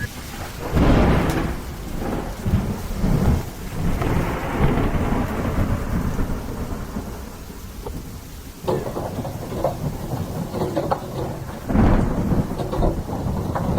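Thunderstorm noise: steady rain with deep rumbles that swell loudest about a second in and again near the end.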